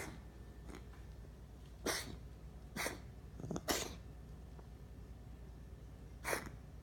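A pet coughing and hacking: a run of short, breathy coughs, roughly one a second, with a quick pair about three and a half seconds in and a longer gap before the last.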